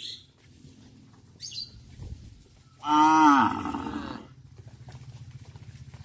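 A cow mooing once, a loud drawn-out moo that rises and falls in pitch and lasts about a second and a half, near the middle.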